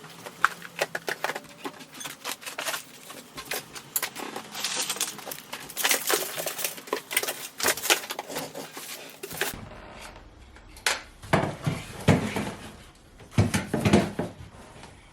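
Clattering, knocking and rustling of filming equipment such as tripods and lights being handled and packed into a storage cabinet. There are many short knocks, with a few louder, duller bumps in the second half.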